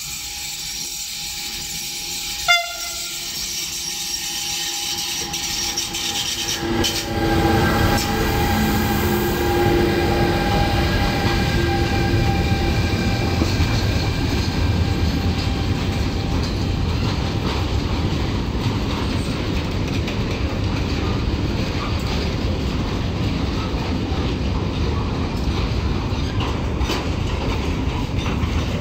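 Freight train of chemical tank containers hauled by a pair of Renfe class 253 electric locomotives. A short horn blast sounds about two and a half seconds in. From about seven seconds the train draws level and passes with a steady rumble of wheels on rail and a whine for a few seconds, then the tank wagons keep rolling by, slowing to pull into a siding.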